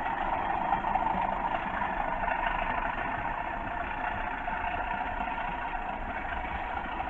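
Hornby TTS sound decoders in Bachmann Class 37 model locomotives playing a Class 37 diesel engine sound through the models' small speakers as they run round the track. It is a steady, even engine drone.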